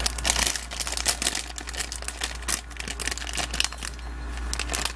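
Plastic blind bag crinkling and crackling as fingers handle it and pull it open, a dense run of sharp crackles.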